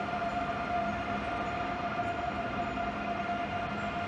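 Renfe AVE high-speed electric train arriving at a platform, giving off a steady electric hum with one clear, held high note.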